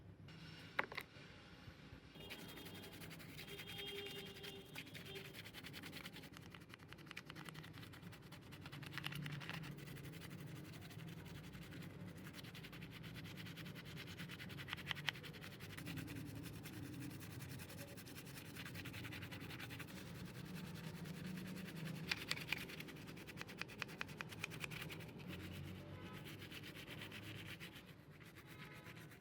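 Steady abrasive scraping and rubbing on a surface, like hand sanding, with a few sharp clicks along the way.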